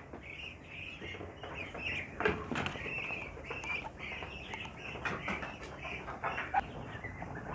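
Young Muscovy ducks peeping: many short, high chirps in quick succession, with a few sharp clicks.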